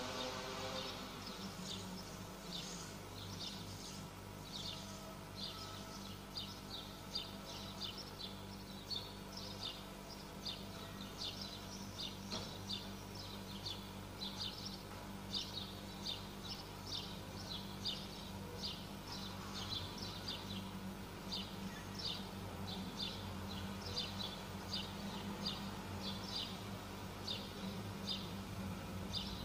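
Small birds chirping: short high chirps, about two a second and irregular, over a steady low hum. The last brass chord fades away at the start.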